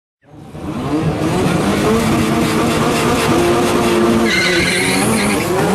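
Nissan GT-R and Toyota Celica GT-Four at a drag strip start line, engines revving and held high with tyres squealing. It starts abruptly, and a higher squeal joins about four seconds in.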